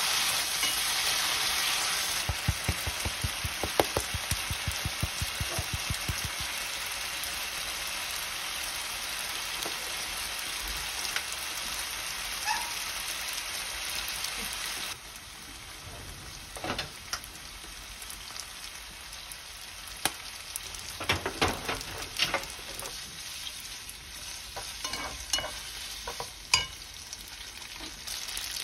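Spaghetti with shrimp and garlic sizzling in oil in a ceramic-coated frying pan while a wooden spatula stirs and tosses it, with taps and scrapes of the spatula against the pan. A quick run of taps comes in the first few seconds. The sizzle turns quieter about halfway through, and scattered clacks follow.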